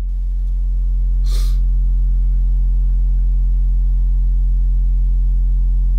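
Single 10-inch car subwoofer playing a steady, loud 44 Hz test tone at the box's peak frequency, swelling up over the first second or so and then holding level.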